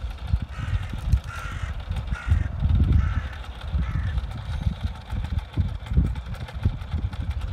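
Wind buffeting the microphone in gusts, with a bird calling five times in a quick run during the first four seconds.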